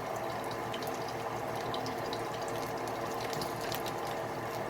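Pancake batter frying in hot vegetable oil in a pan: a steady sizzle with many small scattered pops and crackles.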